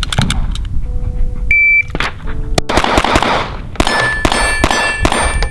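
A shot timer beeps once about a second and a half in. A pistol then fires a string of shots over the next three and a half seconds, and steel targets ring with the later hits.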